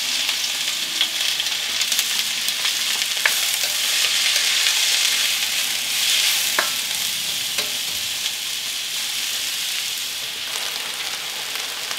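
Diced onion and bell peppers sizzling steadily in hot oil in a wok while being stirred with a spatula, with a few sharp taps of the spatula against the pan.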